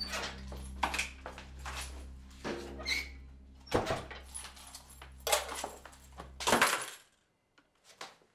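A door handle and lock being worked: a run of sharp clicks and rattles with a jangle like keys, over a low steady drone. The drone cuts off suddenly about seven seconds in, leaving a few faint clicks.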